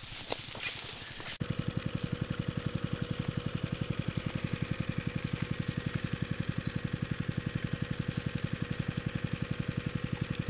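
A small engine idling steadily with an even chug of about eight beats a second. It starts suddenly about a second and a half in; before that there is only faint outdoor background.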